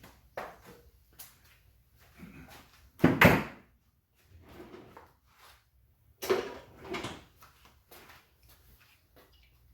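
Hand tools and small metal parts being handled and set down in a workshop: scattered clunks and rattles, with louder metallic clattering about 3 seconds in and again about 6 to 7 seconds in.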